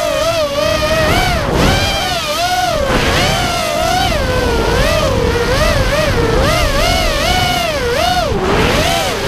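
FPV racing quadcopter's four brushless motors (RotorGeek 2204 2300kv) and propellers whining as heard from the onboard camera. The pitch rises and falls constantly as the throttle is worked through turns, with a deeper drop near the end, over a low rumble of rushing air.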